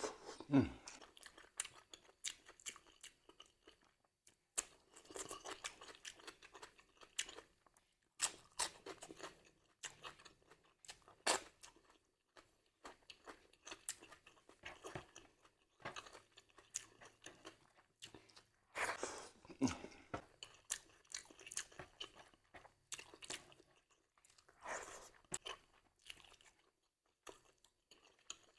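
A person chewing and crunching crisp food close to the microphone, in irregular runs of crackly bites and chews with short pauses between.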